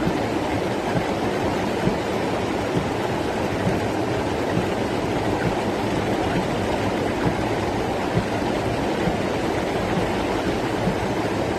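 Storm rainwater rushing along a street in a steady, loud torrent during a cloudburst, with small scattered splashes and ticks.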